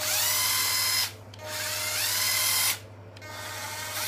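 Cordless drill running without load in three short bursts. Each burst spins up with a rising whine and then holds steady before the trigger is released.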